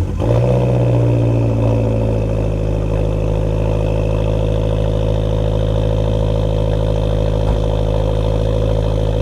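Heavily modified Abarth 500's turbocharged 1.4-litre four-cylinder catching on a cold start, then running at a loud, steady high idle. The pitch dips slightly over the first couple of seconds. It breathes through an aftermarket exhaust with a 200-cell high-flow downpipe and a mid pipe with only a small resonator.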